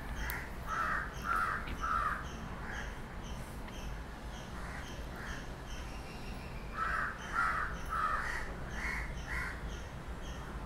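A crow cawing in two runs of short, harsh calls at about two a second: about five calls in the first three seconds, then about six more starting some seven seconds in.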